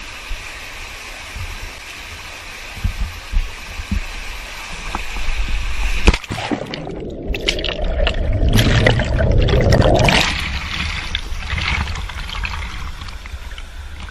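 Water rushing steadily at a waterfall, a constant noisy wash. From about six to ten seconds in it grows louder and rougher, with a few sharp knocks.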